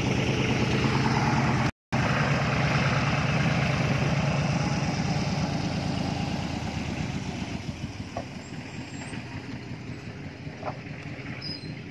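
A vehicle engine running steadily with a low, regular pulse, loud at first and growing fainter from about six seconds in. The sound drops out completely for a moment about two seconds in.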